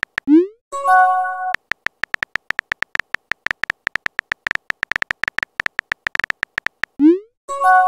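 Messaging-app sound effects. A quick rising swoop and a short multi-note chime as a message is sent, then a fast run of bright keyboard tapping clicks as the next message is typed. Near the end come another swoop and chime.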